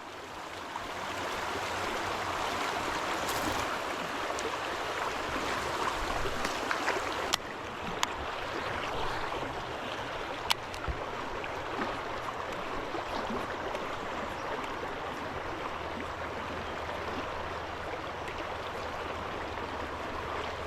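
Steady rush of flowing river water, with a few sharp clicks about seven, eight and ten seconds in.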